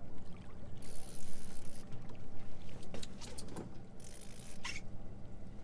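Water splashing as a hooked striped bass thrashes at the surface beside the boat and a landing net goes in. The splashing comes in two bursts, about a second in and about four seconds in, over a low steady rumble.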